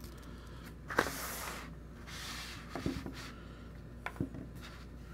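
Hands handling small items on a tabletop: a sharp click about a second in, two short rustles, then a few light knocks near the end.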